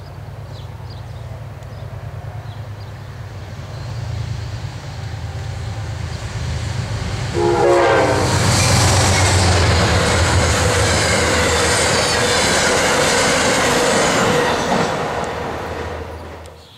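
Amtrak passenger train led by a GE Genesis diesel locomotive, its engine rumble growing louder as it approaches, with a brief horn sound about seven and a half seconds in. The train then passes close for about seven seconds, with a loud, steady rush of wheel and rail noise from the coaches, which fades near the end.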